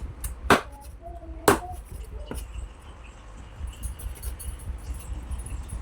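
A blade chopping onto a wooden surface: three sharp strikes in the first second and a half, then a fainter one.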